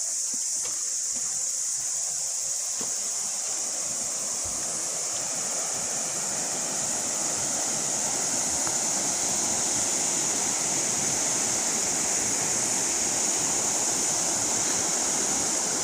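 Rushing of a bush stream, a steady hiss of flowing water that grows fuller and a little louder from about six seconds in, over a constant high-pitched hiss.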